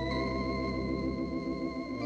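Solo organ music from a 1955 Christmas LP, playing a slow held chord.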